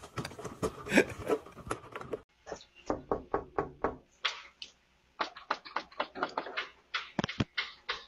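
A few sharp thumps and clicks in the first two seconds, then rapid, uneven knocking on a front door: runs of several knocks a second, with a short pause about halfway through.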